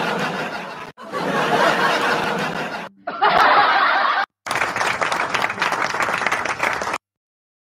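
A man laughing hard in long, breathy, wheezing bursts with brief breaks between them; the sound cuts off abruptly near the end.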